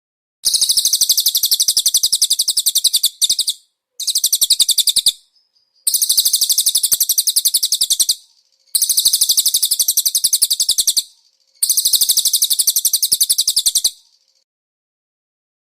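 Songbird singing a fast, very high, rattling trill in five bursts of two to three seconds each, with short silences between them and a brief break in the first. This is a masteran song-training recording for konin birds.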